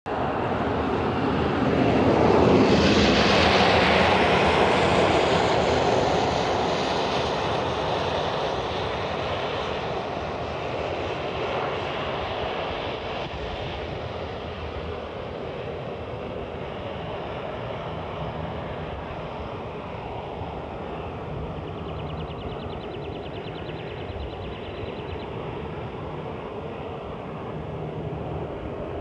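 An aircraft flying past, loudest about three seconds in and then fading slowly away.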